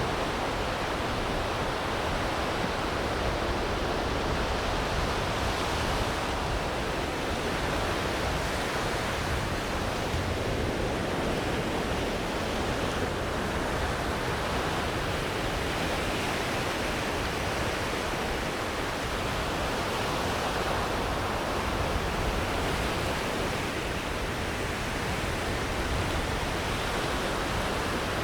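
Sea surf washing onto a sandy beach, a steady rushing noise that swells and eases only slightly.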